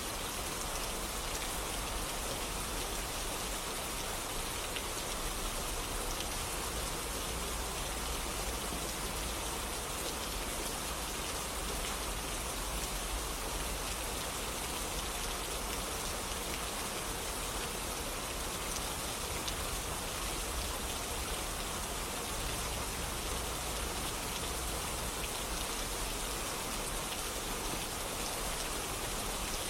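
Steady rainfall, an even hiss of many drops falling on surfaces, with no change in intensity.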